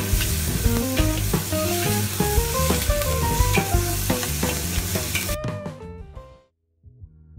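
Pork belly slices and peppers sizzling loudly in a wok as a metal spatula stirs and tosses them, the final stir-fry of twice-cooked pork, with background music playing over it. The sizzle cuts off suddenly about five seconds in, leaving only the music.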